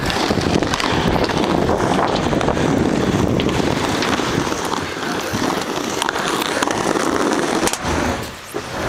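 Hard scooter wheels rolling over rough asphalt: a loud, continuous crackling rumble full of small clicks, dipping briefly near the end.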